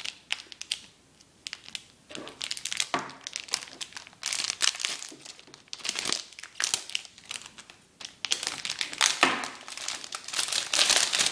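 Thin plastic protective film being peeled and pulled off a new Apple Wireless Keyboard, crinkling and crackling in irregular bursts, busiest about four seconds in and again near the end.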